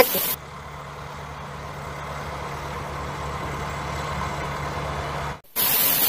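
Steady low engine idle, like a truck's, switching on abruptly about half a second in and cutting off just as abruptly near the end.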